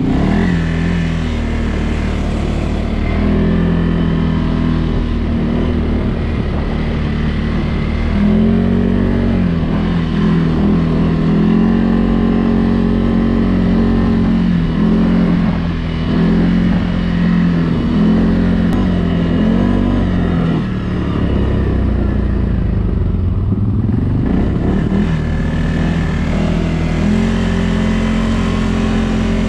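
CFMOTO CForce 1000 ATV on Camso snow tracks, its V-twin engine running under way, the pitch rising and falling again and again as the throttle is worked.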